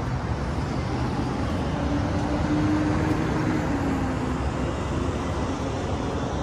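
Steady traffic noise from cars and engines, with a low hum running through it.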